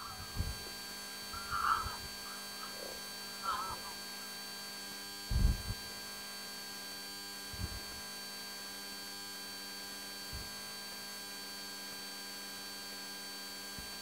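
Steady hum made of several faint level tones. A few short, distant bird calls come in the first four seconds, and low thumps fall about five and a half, seven and a half and ten seconds in.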